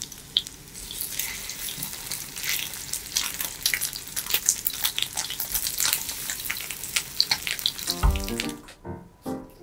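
Food sizzling and crackling in hot oil in a frying pan, a dense patter of small pops. About eight seconds in the frying stops and light piano music comes in.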